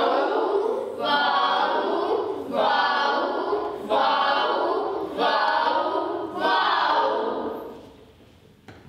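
A group of voices singing together without instruments, in six short phrases of about a second each, stopping shortly before the end.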